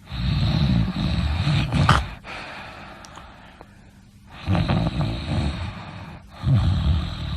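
A sleeper snoring: three loud, rough snores, the first lasting about two seconds, then a quieter pause of about two seconds before a second snore and a shorter third one close behind it near the end.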